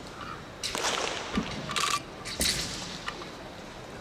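A southern broadsword (nandao) swishing through the air in a few quick, sharp cuts, with a short thud of a foot landing on the competition carpet between them.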